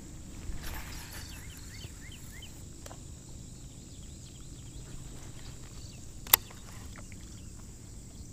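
Outdoor ambience with a steady low rumble, a quick run of short high chirps about a second in, and one sharp click about six seconds in, the loudest sound.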